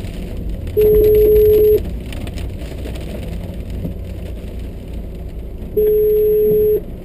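Telephone ringback tone heard over the car's speakerphone: a steady single tone about a second long, sounding twice about four seconds apart, the signal that the called phone is ringing and not yet answered. Beneath it, rain and road noise in the car.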